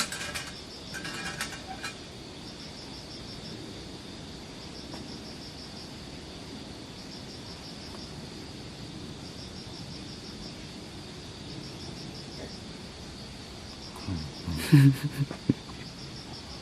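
Crickets chirping in short pulsed trills that repeat every couple of seconds over a steady high insect drone. A brief louder noise breaks in near the end.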